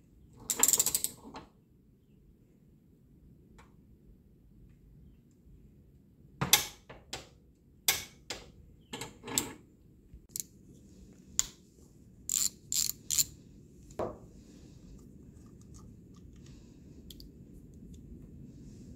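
A ratchet wrench clicks in a short quick run about half a second in as it turns the flywheel nut on a Briggs & Stratton engine. Later come about a dozen sharp metallic knocks and clicks at uneven spacing from hand tools on the nut and crankshaft end.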